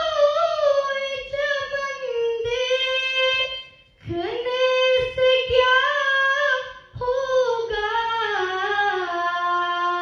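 Solo unaccompanied singing by a high voice, a naat sung in long, held, ornamented phrases with short breaths about four and seven seconds in; the last phrase sinks lower and holds.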